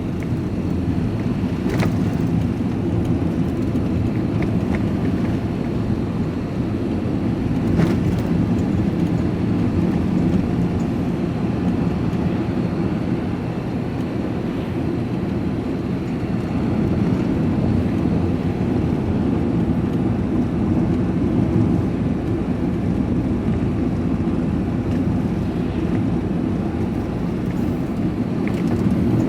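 Steady engine and road noise from inside a moving vehicle's cab, a low even rumble.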